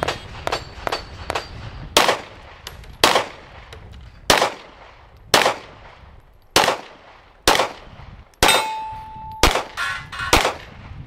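A Glock pistol firing a steady string of about nine shots roughly a second apart, after fainter shots in the first second and a half. A steady ringing tone follows one shot near the end for about a second.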